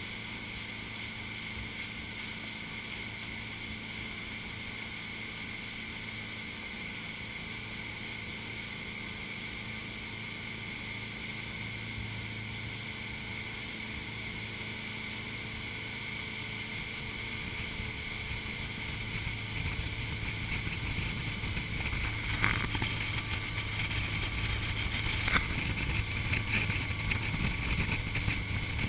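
Motorboat engine running steadily at towing speed with water rushing in the wake and some wind on the microphone. It grows louder and rougher about two-thirds of the way in, with two sharp knocks near the end.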